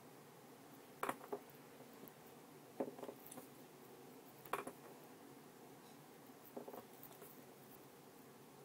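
Pencil tapping and scratching on paper in four brief clusters of clicks, spaced a second and a half to two seconds apart, over a faint steady hiss.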